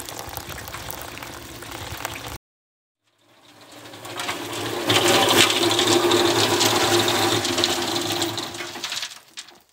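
Rainwater running out of a gutter downspout; then, after a brief cut, a Red Lion cement mixer running with rocks and hickory charcoal tumbling in its drum to grind the charcoal, a steady motor hum under a dense rattle that fades in, runs loudly for about four seconds and fades out near the end.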